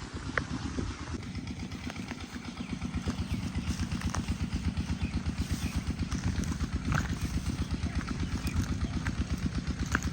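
Diesel engine driving an irrigation water pump, running steadily with a fast, even chugging beat and a few light clicks.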